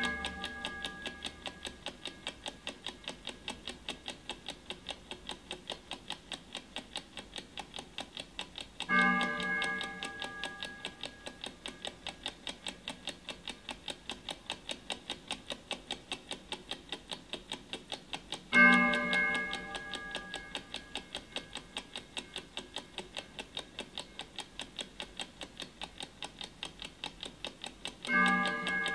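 Clock ticking steadily, several ticks a second. Three times, about every ten seconds, a gong-like chime is struck and rings out over a couple of seconds, each strike marking an hour in a sped-up twelve-hour countdown.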